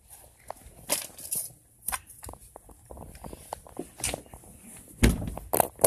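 Scattered light knocks, clicks and rustles of things being handled and moved, with a heavy thump about five seconds in and a sharp knock just after.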